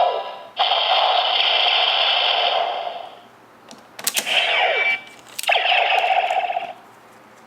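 Electronic sound effects from a DX Neo Decade Driver toy belt's small speaker: three bursts of synthesized attack sounds, the middle one short, with sharp clicks at its start and a falling sweep.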